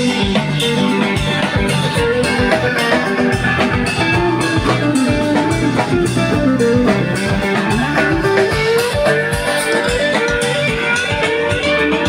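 Live rock band playing an instrumental passage with no singing: electric and acoustic guitars and bass over a steady drum kit beat, a guitar melody bending up and down.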